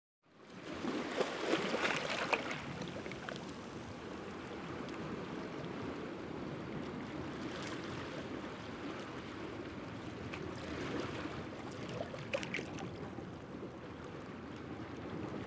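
Small sea waves washing against shore rocks: a steady wash of seawater with brief splashes, the biggest about two seconds in. The sound fades in just after the start.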